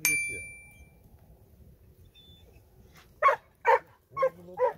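Dog barking four times, about half a second apart, starting about three seconds in. A short metallic ding rings out at the very start.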